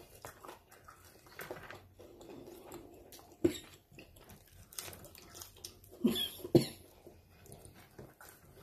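A person eating: chewing and fingers handling fried food on a plate, with a few short sharp sounds standing out, the loudest about three and a half seconds in and a pair about six seconds in.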